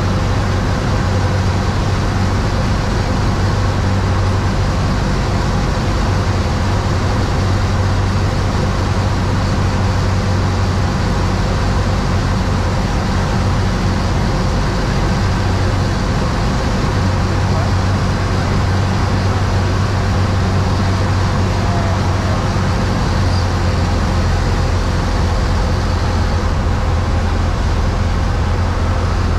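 Cessna 172's piston engine and propeller running steadily in flight, heard inside the cabin as a loud, even drone with a low hum that shifts slightly a few times.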